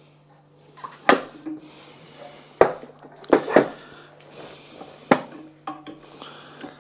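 Hand tools and metal plumbing fittings knocking and clinking, about five sharp knocks with soft rustling between them, over a steady low hum.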